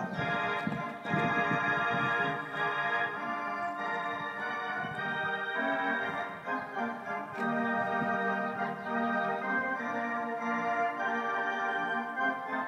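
Background music with long held chords.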